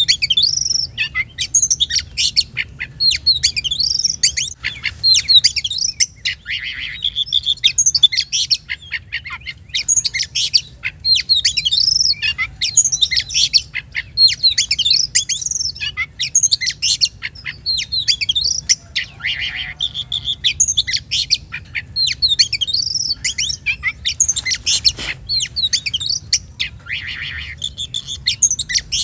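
Oriental magpie-robin (kacer) singing continuously: a fast, unbroken run of varied whistled phrases and trills, with a few rasping notes.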